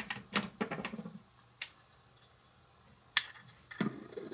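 Small kitchen knife tapping and scraping on a miniature wooden cutting board while slicing red onion and pushing the strips aside: a run of sharp taps in the first second, a single tap, a quiet stretch, then a few more taps near the end.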